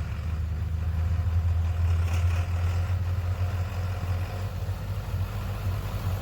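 Truck engine running steadily with a low rumble, growing a little louder about a second in.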